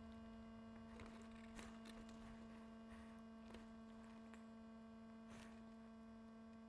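Near silence: a steady low electrical hum, with a few faint short ticks.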